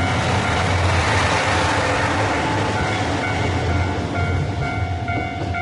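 A two-car diesel railcar train, the KiHa 222 and a KiHa 3710, pulls out and rolls past close by. Its wheel and engine noise is loudest in the first two seconds, then fades as the train moves away. As it fades, a short repeating tone about twice a second comes through more clearly.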